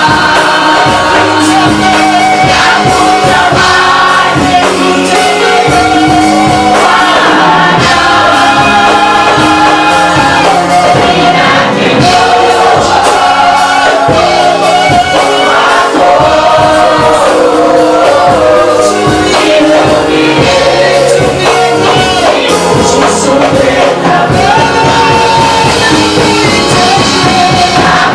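Gospel worship singing: a group of voices singing together over loud, steady musical accompaniment.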